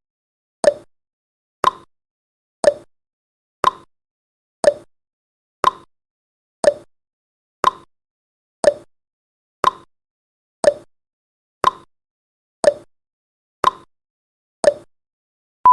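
Clock-style tick-tock sound effect of a countdown timer, one tick a second, alternating between a lower and a higher tick, fifteen ticks in all.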